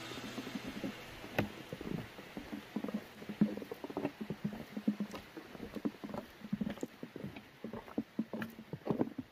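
Footsteps crunching on the snow-covered deck of a pedestrian suspension bridge: an irregular run of short crunches and knocks, some louder than others. Background music fades out at the start.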